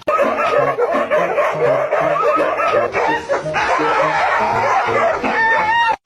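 Music with a wavering, pitched voice-like sound over it, cutting off abruptly just before the end.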